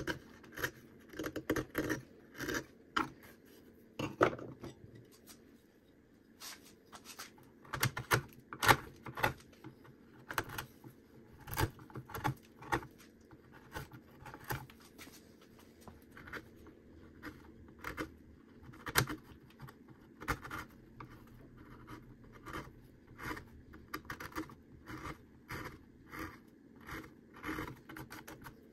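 Small carving knife cutting and scraping cottonwood bark by hand in short, irregular strokes.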